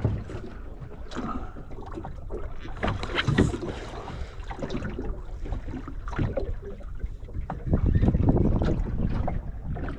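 Wind buffeting the microphone on a small boat at sea, with scattered knocks and clicks from handling on deck; the wind rumble grows louder near the end.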